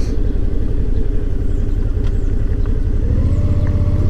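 Motorcycle engine running at low speed, rising slightly in pitch and getting louder about three seconds in.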